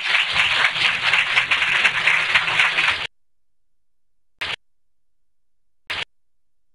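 Audience applauding, then cut off abruptly about three seconds in. Near silence follows, broken twice by a short burst of noise about a second and a half apart.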